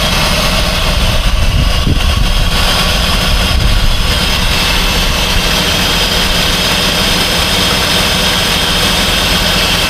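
Freshly rebuilt 2006 Jeep Grand Cherokee 3.7-litre V6 idling steadily on its first run, with a steady high whine over the engine note.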